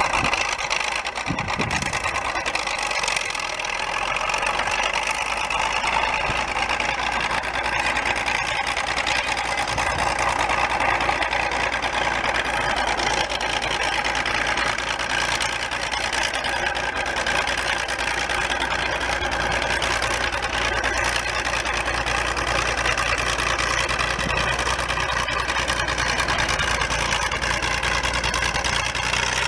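International Harvester TD-18 crawler's diesel engine running steadily as it pulls a train of freighting sleighs. The owner says the engine has diesel injector problems.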